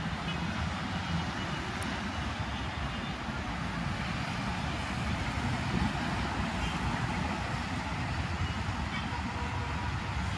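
Steady hum of road traffic passing along a busy road, with wind buffeting the microphone.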